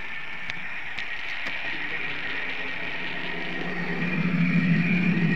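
Märklin model train running on its track, picked up by a small on-board camera: a steady high hiss with a thin whine, a few sharp clicks in the first couple of seconds, and a lower hum that grows louder in the second half.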